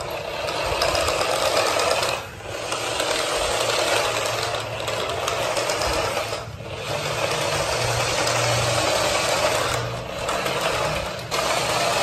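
Remote-control toy garbage truck driving on a tiled floor, its small electric drive motor and plastic gears whirring steadily. The noise drops away briefly three times, about two, six and eleven seconds in, as the truck stops and starts.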